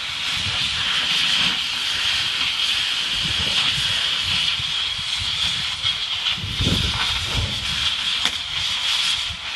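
Cutting torch hissing steadily as its flame burns through a steel anchor chain link, with some low rumbling about two-thirds of the way in.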